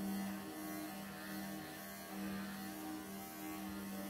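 Bravura electric pet clippers running with a steady hum that swells and dips slightly as the blade is pushed through a matted Persian cat's coat.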